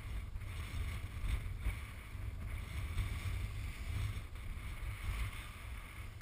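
Wind buffeting the camera's microphone: a low, gusty rumble that swells and eases, with a faint hiss above it.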